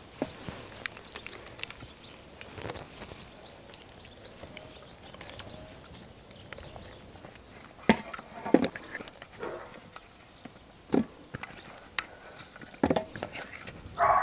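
Food being laid into stainless steel trays: faint soft taps at first, then from about eight seconds in, louder clinks and knocks of a steel mixing bowl and vegetable pieces against the steel trays.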